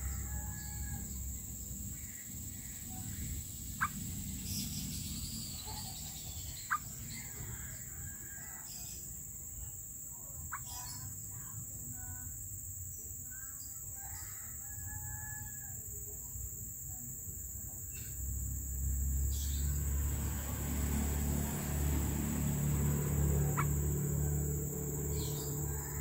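Outdoor bird calls: scattered short chirps, with fowl sounds such as a rooster crowing, over a steady high-pitched drone. A couple of sharp clicks come a few seconds in, and a low rumble rises about two-thirds of the way through.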